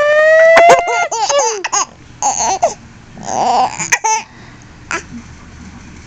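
Baby laughing: a high squeal rising over about a second, then a quick run of giggles, and a few more short laughs up to about four seconds in.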